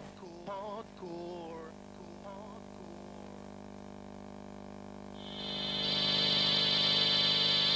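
Electronic soundtrack: a steady low hum-like drone with a few wobbling, warbly notes that fade out in the first couple of seconds, then a bright, high synthesizer tone swells in about five seconds in and holds.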